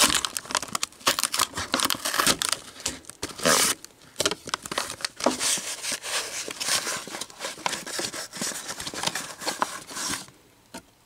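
A cardboard retail box of baseball cards and its packaging being torn open and the stack of cards pulled out: a busy run of short rips and crinkles, which dies down about ten seconds in.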